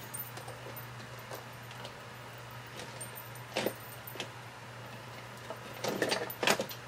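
Quiet handling of craft papers and supplies on a desk: faint rustles and small clicks, one sharper click about halfway and a short flurry of clicks and rustles near the end, over a steady low hum.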